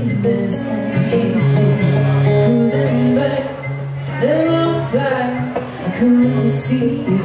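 Live solo acoustic guitar, strummed in a steady rhythm through a PA, with a woman's singing voice coming in around the middle.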